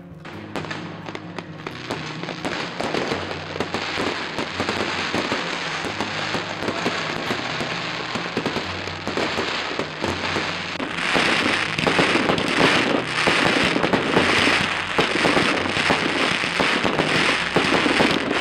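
Aerial fireworks bursting in dense, rapid crackling and popping, growing louder about eleven seconds in.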